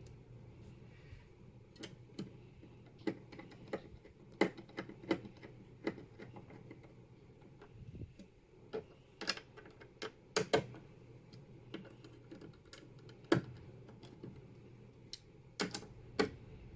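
Irregular small clicks and taps of a screwdriver, screws and metal bracket as a 2.5-inch SSD is screwed onto its mounting bracket.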